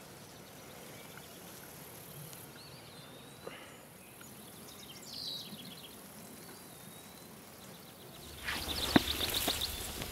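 Quiet marsh-edge ambience: faint bird calls and a thin insect hum. About eight seconds in comes louder rustling with a sharp knock, from someone moving through tall grass and handling gear, and a quick run of high ticks.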